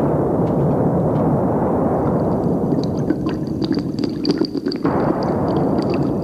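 A loud, explosion-like roar of noise that began suddenly just before, with scattered crackles and a faint thin whistle in its second half; the deepest part of the roar drops away about five seconds in.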